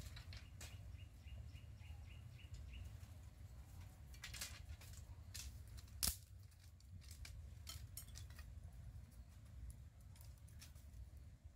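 Dry firewood sticks being handled and broken to feed a clay stove: scattered light clicks and cracks, with one sharp snap about six seconds in, over a low steady rumble.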